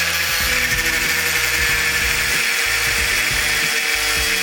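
Power tool running steadily as it cuts down a metal spanner so it will fit the air-line fittings, with background music carrying a bass line underneath.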